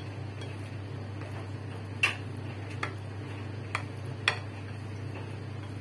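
Chopsticks clicking against a ceramic plate while mixing marinated chicken liver: a few sharp, separate clicks, the loudest about two seconds in, over a steady low hum.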